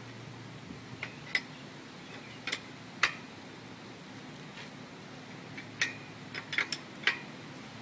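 About a dozen sharp, irregularly spaced metallic clicks of a wrench working the axle nuts as the BMX wheel is tightened back into the fork.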